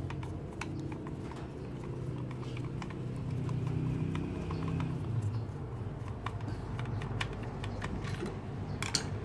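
Phillips screwdriver turning screws out of a mini juicer's plastic motor housing: small scattered clicks and ticks of the tip and screws against the plastic, over a low steady background rumble.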